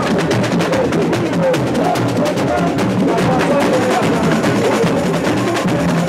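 A samba school bateria playing a fast batucada: bass drums (surdos) pulse under a dense, unbroken rattle of snare drums. Short gliding high notes weave through the drumming.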